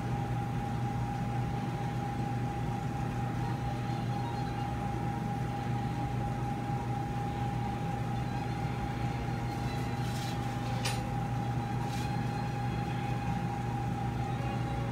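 Steady machine hum of operating-room equipment with a constant thin whine over it, and a few faint clicks near the end.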